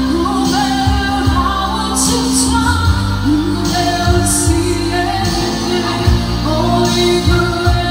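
Live pop song: a woman sings lead into a microphone over amplified electric guitar with a sustained bass line, all through a PA.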